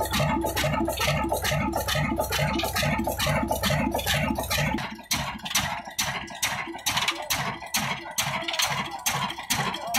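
Old single-cylinder horizontal diesel engine with a heavy flywheel, of the Ruston & Hornsby type, running steadily with an even, slow beat of roughly three a second. About five seconds in the deep low hum drops away while the beat carries on.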